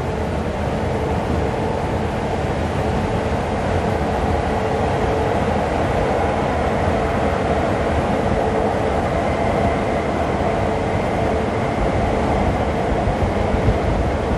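Peterbilt semi truck running at highway speed alongside, a steady heavy rumble of diesel engine and tyres, with a steady whine from the truck's turbocharger on top.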